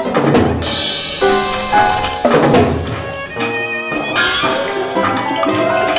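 Live contemporary chamber music for violin, cello and percussion: held bowed string notes, broken by three sharp percussion strikes that ring on, near the start, a little after two seconds and about four seconds in.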